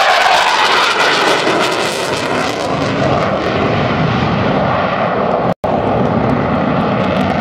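F/A-18 Hornet fighter jet flying a display pass, its twin jet engines a loud, steady rush of noise. The high hiss thins out after about three seconds, and the sound cuts out for an instant about five and a half seconds in.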